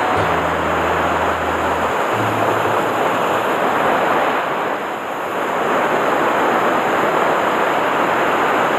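Sea waves breaking and washing over shoreline rocks: a steady rush of surf that eases briefly about halfway through.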